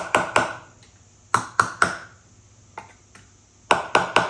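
Sharp metal-on-metal taps, in quick sets of three repeated about every second and a half, each with a short metallic ring, as a steel retaining ring is knocked down into its groove on a gearbox input shaft.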